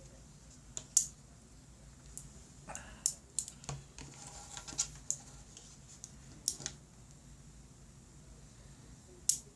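Small parts of a magnetic toy pen clicking and snapping together as they are handled and fitted, about ten sharp light clicks at irregular intervals, the loudest about a second in and near the end.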